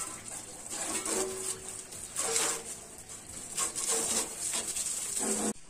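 Water from a hose jet spraying onto a tractor's bodywork and tyres: a steady hiss that cuts off suddenly near the end, with a few short, louder sounds over it.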